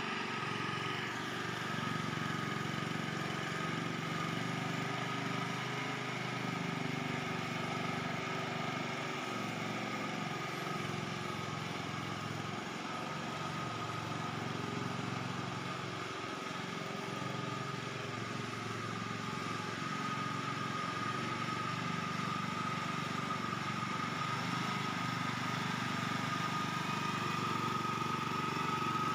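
Small engine of a BRRI hydrotiller running steadily under load as it churns through puddled paddy mud, with a steady high whine over the engine note. It is a little quieter in the middle and loudest near the end as the machine comes close.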